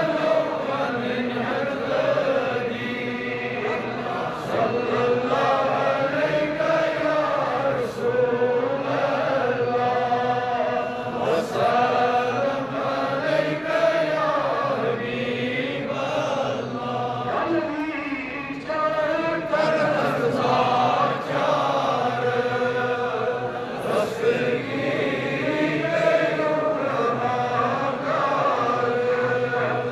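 Islamic devotional chanting: voices reciting in a slow, wavering melody with long held notes, without a break.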